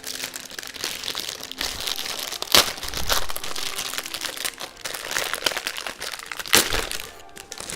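Hard drive packaging being handled and opened: continuous crinkling and rustling, with two sharp snaps about two and a half and six and a half seconds in.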